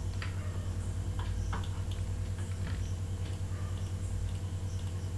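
Scattered faint clicks of a computer mouse as beams are picked one by one, over a steady low hum with a fast flutter.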